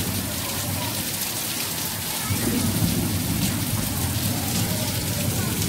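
Heavy rain falling in a steady, dense hiss; a low rumble comes up about two seconds in and carries on underneath.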